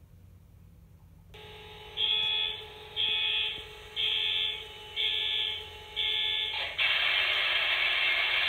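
A model diesel locomotive's onboard sound decoder running its start-up sequence through the model's small speaker. Five electronic alarm beeps come about once a second, then near the end of the beeps a louder continuous rush of the diesel engine's start-up sound begins and keeps going.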